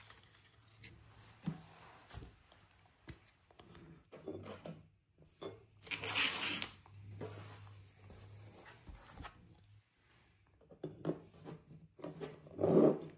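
Trading cards and foil card-pack wrappers being handled, with scattered rustles and a brief crackle of wrapper foil about six seconds in. A louder short bump near the end, as a card is set into a clear acrylic stand on the table.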